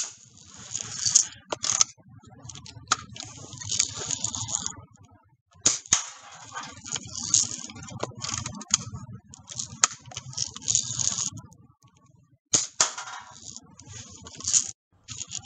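Red Ryder lever-action BB gun being fired and worked: two sharp snaps, one about six seconds in and one past twelve seconds, between stretches of irregular rattling as the gun is handled and cocked, over a low rumble.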